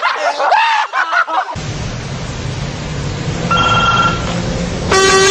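Young men's voices for about a second and a half, cut off abruptly. Then steady street traffic noise, with a short high-pitched tone about three and a half seconds in and a louder held tone near the end.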